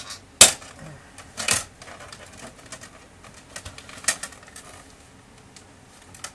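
Plastic case of a Samsung ML-1665 laser printer being pried apart: sharp cracks and clicks as the snap fittings resist and give, the loudest about half a second in, another about a second later and one more near the end of the fourth second, with small ticks in between.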